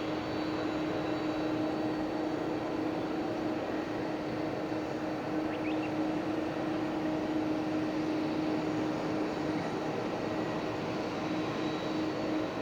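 Boeing 767-300ER's jet engines running steadily: an even rush of noise with a constant hum-like tone, holding the same level throughout.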